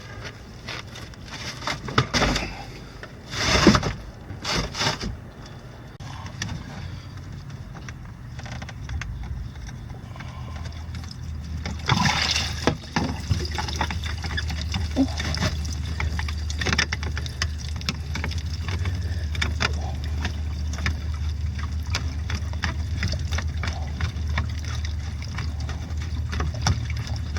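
Hot tub pump running with a steady low hum while water churns and splashes, starting about twelve seconds in; a few knocks come in the first few seconds.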